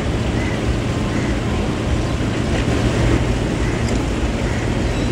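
Boat engines running steadily as an even low rumble.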